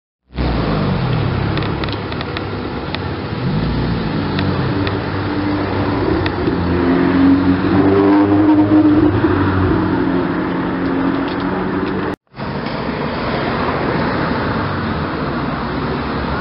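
Ferrari sports car engines pulling slowly through a street with light throttle. The pitch rises and falls about three to four seconds in, and the revs are loudest around eight seconds in. The sound cuts out for a moment about twelve seconds in, then a second Ferrari's engine carries on with road noise.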